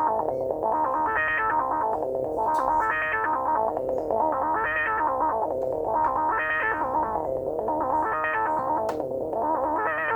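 Korg microKORG synthesizer holding a sustained sound whose filter sweeps open and closed in a steady rhythmic wah, about once every second and three-quarters.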